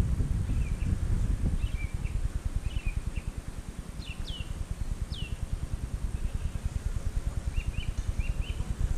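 Spinning reel cranked steadily on a lure retrieve, a low, fast, even whirr close to the microphone. Small birds chirp throughout, with two sharp descending whistles about four and five seconds in.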